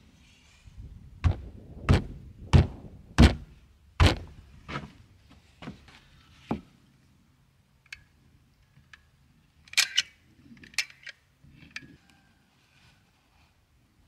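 A run of heavy wooden knocks as 2x6 truss lumber and plywood gusset blocks are set down and knocked into place on a wooden deck, about two a second at first and then spaced out. Later come a few lighter clicks, typical of a caulk gun's trigger being worked to squeeze out construction adhesive.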